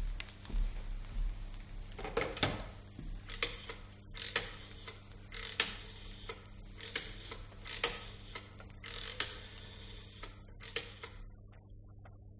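Rotary telephone being dialled: the dial wound round and let run back digit after digit, a string of ratcheting clicks that stops about eleven seconds in.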